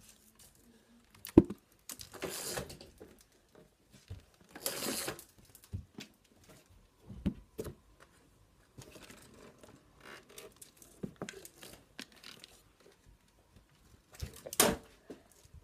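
Scattered rustling and scraping of curtain fabric and the handheld phone being jostled, with a sharp knock about a second and a half in and another near the end.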